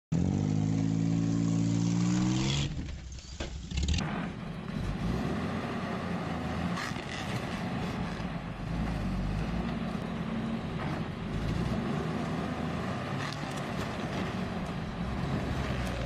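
A pickup truck's engine revving, its pitch rising, while the truck strains on a rope tied to a tree stump. Then an old heavy truck's engine running hard under load as it drags a stump out of the ground on a cable, with a few sharp knocks.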